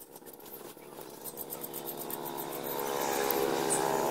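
A motor vehicle's engine running, growing steadily louder from about a second in, over light metallic clicks of bolts and spacers being handled on a steel sprocket.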